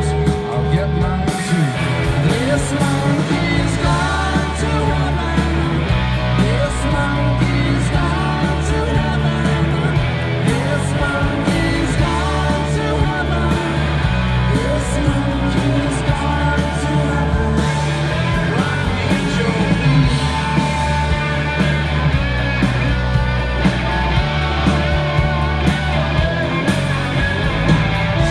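A live rock band playing, with electric guitars, bass guitar, a drum kit and sung vocals, heard from within the audience.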